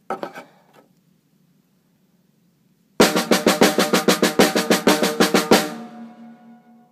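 A drum played with drumsticks: after a couple of seconds of quiet, a quick run of four paradiddles lasting about two and a half seconds, then the drum rings on briefly and fades.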